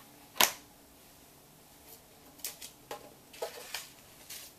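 Items and packaging being handled in a cardboard subscription box: one sharp tap about half a second in, then a few soft scattered rustles and clicks.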